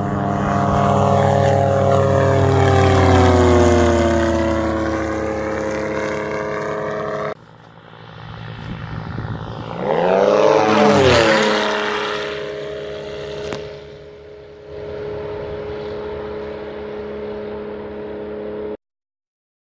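Subaru 3.3-litre flat-six engine and pusher propeller of a Cozy Mark IV RG canard aircraft in flight, making two flybys. In the first, the engine note slowly drops in pitch as the aircraft draws away. After a cut, a close pass midway rises and then falls sharply in pitch, settling into a steady drone that cuts off near the end.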